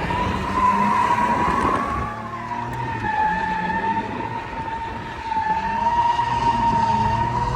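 A drifting car's tyres squealing continuously over the engine revving up and down, louder about a second in and again in the last couple of seconds.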